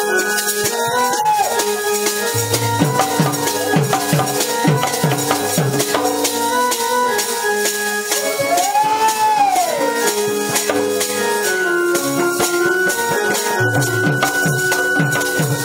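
Folk dance music: a hand-played two-headed barrel drum beats out runs of strokes, under a held melody line with a couple of swooping pitch bends and a constant high jingling rattle. The drum strokes drop away in the middle and come back near the end.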